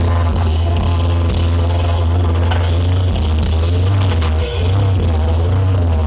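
Loud live music from a didgeridoo and drum band: a steady low didgeridoo drone with shifting overtones under driving drums and percussion.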